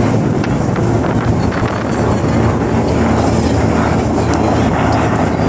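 Steady low drone of a ferry's engines under way, with wind buffeting the microphone.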